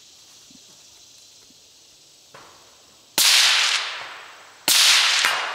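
Two rifle shots about a second and a half apart, each with a long echoing decay. A much fainter crack comes shortly before the first.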